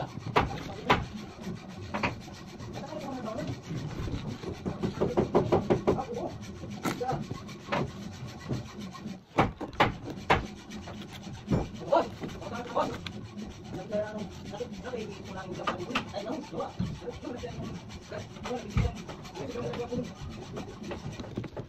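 Red PVC electrical conduit being worked by gloved hands on a concrete floor: the pipe rubs and scrapes, with scattered clicks and knocks.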